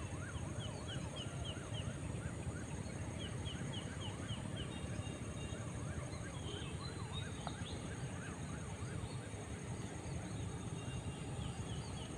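Steady low noise with birds calling over it: repeated rising-and-falling whistles and short runs of quick high chirps.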